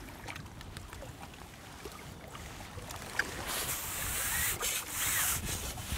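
Wind rumbling on the microphone, then from about three seconds in a click and loud splashing and sloshing of water as a hooked bream is drawn into a landing net.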